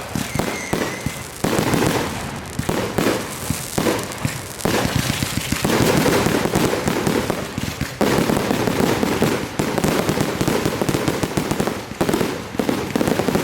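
Consumer fireworks going off in a continuous, rapid barrage of bangs and crackling.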